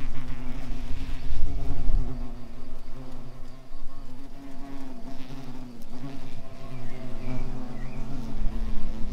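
Asian hornets buzzing close to the microphone as they fly back to their nest: a steady hum that wavers slightly in pitch.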